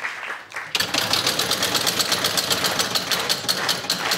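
A game-show prize wheel spinning: the pegs on its rim strike the pointer flapper in a fast, even run of clicks, several a second, starting about three-quarters of a second in.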